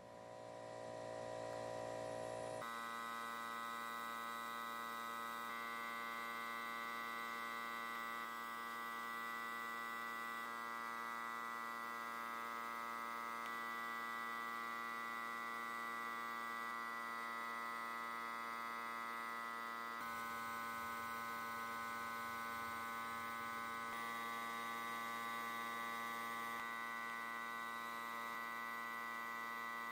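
A steady electrical hum made of many overtones, building up over the first two seconds and then holding level.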